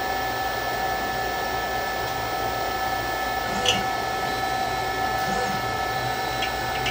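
Steady low electrical hum with several faint, steady high-pitched tones and a single light click about three and a half seconds in; the router motor is not running.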